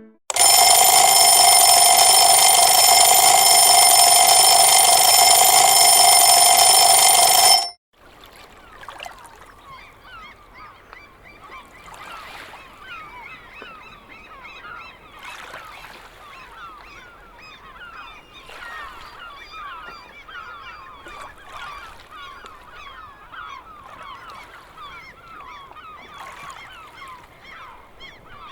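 Itel S25 Ultra phone ringtones: a loud, steady buzzing tone that cuts off suddenly after about seven and a half seconds, then a quieter tone made of a dense stream of many short, rapid, overlapping calls.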